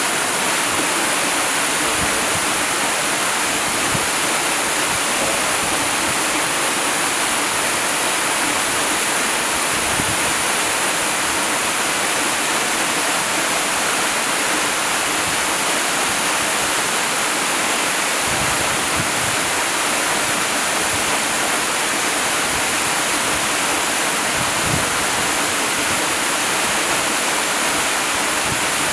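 Waterfall rushing in a steady, unbroken hiss of falling water, bright and even, with no change in level.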